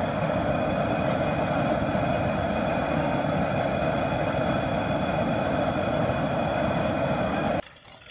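Propane turkey-fryer burner running under the pot of oil with a steady roar, a few faint whistling tones above it. The roar stops suddenly near the end, leaving much quieter sound.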